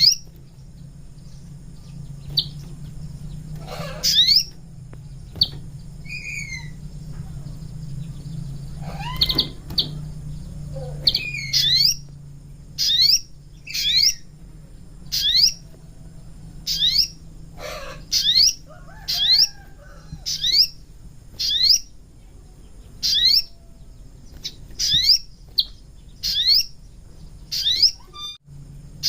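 Sogon bird calling: short, sharp rising chirps, scattered at first and then repeated about once a second, over a steady low hum.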